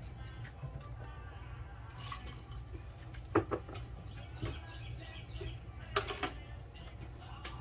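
Kitchen utensils clinking against cookware and dishes a few times, sharpest about three and a half seconds in and again about six seconds in, over a steady low hum.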